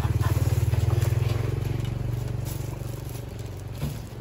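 Small motorcycle engine running close by, a low rapid putter that fades over the few seconds, with a single knock near the end.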